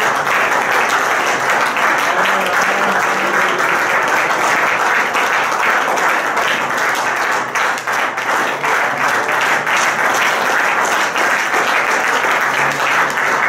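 Church congregation clapping in praise, a dense, sustained round of applause with voices mixed in.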